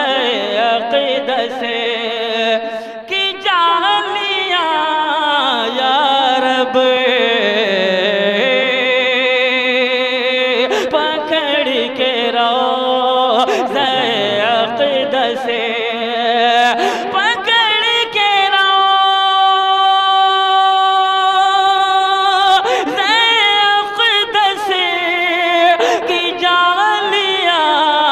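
A man singing a naat unaccompanied, with long ornamented runs that glide up and down. He holds one steady note for about four seconds past the middle, then resumes the melody.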